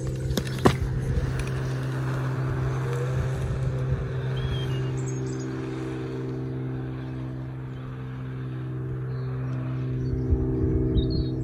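A steady, low engine-like hum with several overtones runs throughout. About a second in there is a sharp knock as the electric scooter is kicked off. A hiss follows and eases off as the scooter rides away, and birds chirp near the end.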